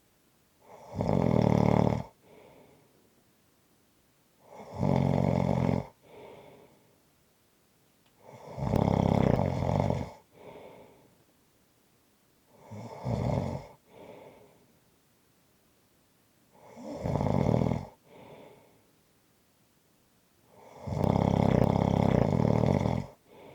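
A person snoring: six loud snores at an even pace of about one every four seconds, each lasting one to two seconds and followed by a short, quieter sound, with near silence between them.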